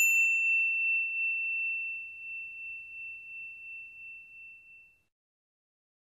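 A single bell-like ding, struck once and ringing out with one clear high tone, fading steadily until it dies away about five seconds in.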